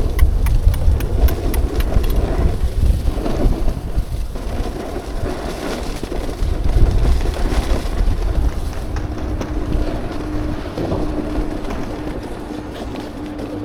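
Wind buffeting the microphone over the hiss and scrape of a snowboard sliding on snow. From about nine seconds in, a low tone beeps on and off a little less than twice a second.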